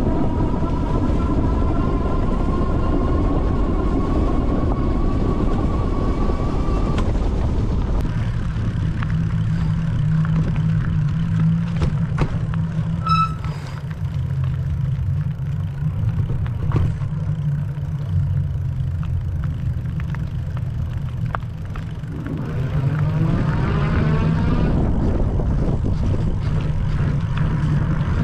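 Electric bike's 750 W motor whining and rising in pitch as the bike speeds up under power, with a steady low rumble of riding. The whine drops away after about seven seconds, leaving the rumble with scattered knocks. The whine rises again near the end as the bike accelerates once more.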